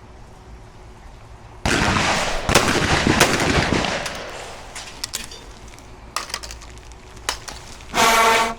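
A shotgun shot at a skeet target about a second and a half in, its report echoing and fading over about two seconds, with sharper cracks inside it. A few light clicks follow.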